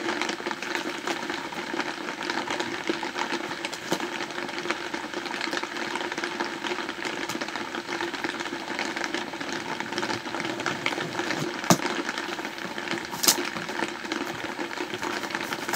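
Heavy rain coming down hard on a yurt roof, a steady hiss, with two sharp clicks from the cardboard box being opened about three-quarters of the way through.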